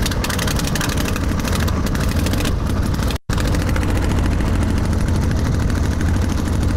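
1920s Harley-Davidson motorcycle engine in a homebuilt airplane, running hard and turning the propeller: a loud, rapid stream of firing pulses over a deep drone. The sound drops out for an instant about three seconds in, then carries on the same.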